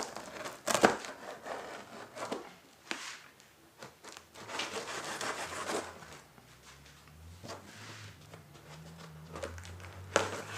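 Sealed cardboard storage carton being slit open with a blade and its flaps pulled apart: irregular rasping, tearing and crinkling of packing tape and cardboard, with a sharp loud rip about a second in and a longer scraping cut around the middle.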